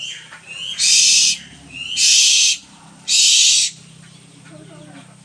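An owl giving harsh, hissing screeches, three in a row about a second apart, each starting with a short rising note.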